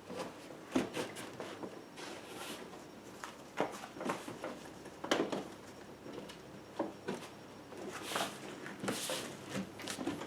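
Scattered clicks, knocks and brief rustles of a rear bagger's bags being pressed and seated into the hopper's grooves by hand.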